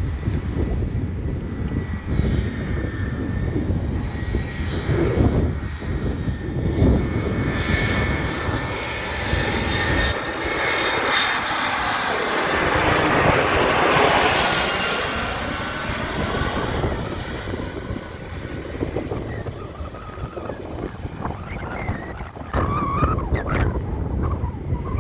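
Jet airliner passing close by, its engine noise swelling to a peak about halfway through and then fading, with a whine that falls in pitch as it goes by. Wind rumbles on the microphone.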